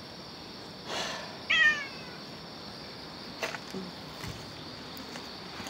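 A cat meows once, a short falling meow about a second and a half in, over a steady chirring of crickets, with a few faint clicks later on.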